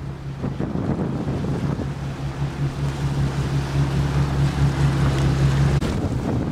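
Wind buffeting the microphone out on the water, with a steady low hum that stops abruptly near the end.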